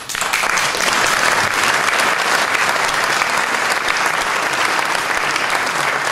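Audience applause: a large crowd clapping. It starts abruptly and holds steady and dense.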